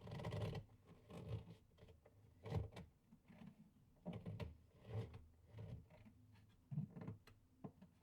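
Old wooden timbers creaking and groaning under movement, a string of irregular creaks about every half second to a second, the loudest near the start, about two and a half seconds in, and near the end.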